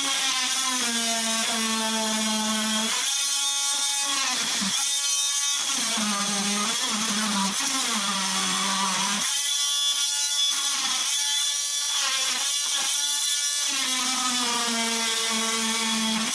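Electric power tool running with a steady whine, cutting into the shop wall. Its pitch sags and it pauses briefly several times as it bogs under load.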